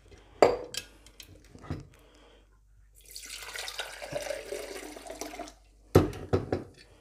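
Liquid being poured into a glass bottle for a few seconds, kombucha filling a bottle being bottled. Short knocks before the pour, and a sharp knock just after it, the loudest sound here.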